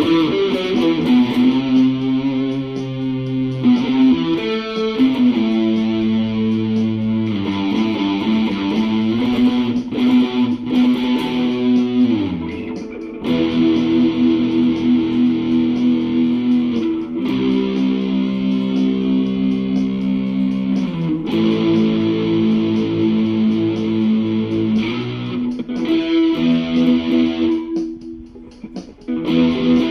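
Epiphone Les Paul Studio LT electric guitar played with distortion through a small NUX Mighty 8 amplifier: held chords and riffs with a brief drop in level near the end.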